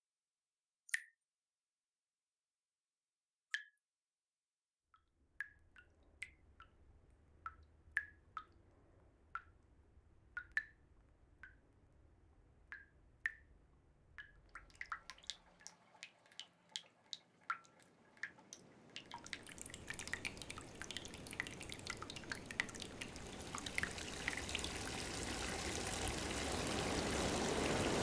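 Water dripping, single drops a couple of seconds apart at first, then coming faster and faster. From about two-thirds of the way in, a rushing wash of water swells up and grows steadily louder.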